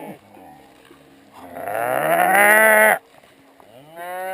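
Two long animal calls. The first, about a second and a half long, is the louder; the second comes near the end. Each call rises in pitch at the start and then holds steady.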